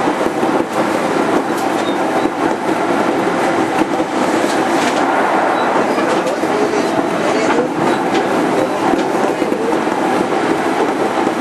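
Interior running noise of a JR 205 series 5000-subseries electric train, heard inside motor car MoHa 205-5022 while running at a steady speed. Wheels and rails make a steady rumble, with a few clicks as the wheels pass over rail joints.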